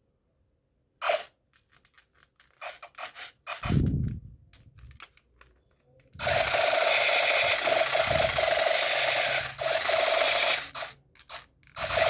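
Plastic toy gun being handled, with sharp clicks and a low thud, then from about halfway through a battery-powered toy gun firing in a long, loud, steady electric buzz, breaking off briefly twice near the end.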